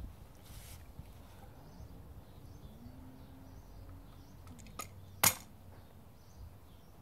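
Hand tool working on a PVC pipe: a small click, then one sharp loud snap about five seconds in. Birds chirp faintly in the background.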